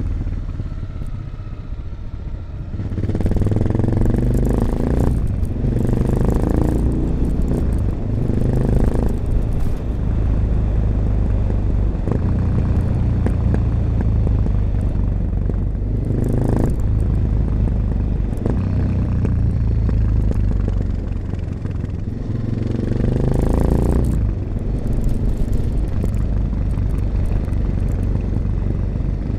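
1986 Honda XL600RM's single-cylinder four-stroke engine running through an aftermarket XRacing exhaust with its dB killer fitted, under way. The revs rise several times: a few seconds in, around the middle and near the end.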